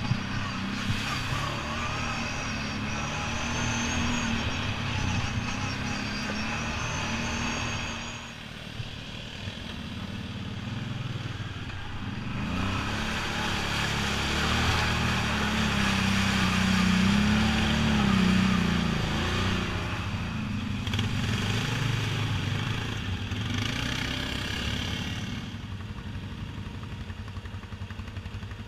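ATV engine running under throttle on a trail. It eases off about eight seconds in, then revs up again and rises to its highest pitch and loudness around eighteen seconds in, before settling lower near the end.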